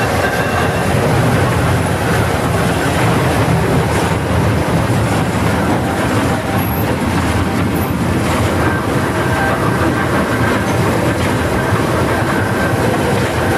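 Lorain 80-J cable shovel running while it is worked, heard from inside its machinery house: the steady, loud Caterpillar diesel engine, mixed with the clatter of the winch drums, gears and wire ropes.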